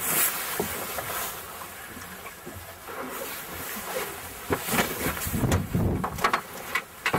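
Wind buffeting the microphone on an open boat deck: uneven gusts of rumble and hiss, heavier in the second half.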